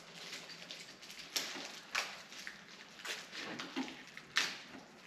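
Packaging being handled, rustling and crinkling like plastic wrap, with several sharp crackles.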